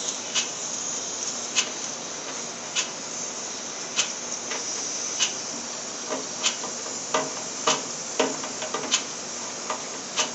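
A flow brush scrubbing a spray gun's fluid tip and fluid passage in a waterborne gun cleaner, over a steady hiss. Sharp irregular clicks and taps of the brush and metal parts knocking come more often in the second half.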